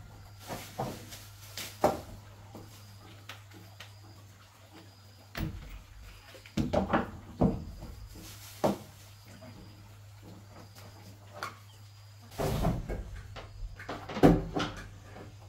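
Scattered knocks and clatter of a power sander and its electric cord being picked up, set down and handled on a wooden plank floor, in loose clusters with pauses between, over a low steady hum.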